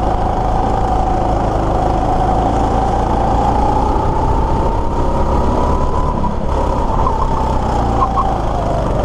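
Rental go-kart's small petrol engine running at speed on the track. Its whine climbs slowly as the kart accelerates, then drops about eight seconds in as the driver eases off for a bend.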